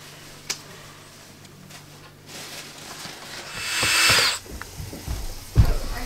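Hands working an electrical outlet and its wires into a wall box: a sharp click about half a second in, a brief rasping, squealing scrape about four seconds in, and a heavy thump near the end.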